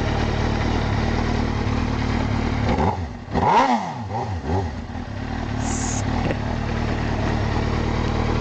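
Suzuki GSX-R inline-four with a shortened Yoshimura RS-3 slip-on exhaust passing by in first gear: its engine note rises and falls a few times, loudest about three and a half seconds in. A steady low engine idle runs underneath.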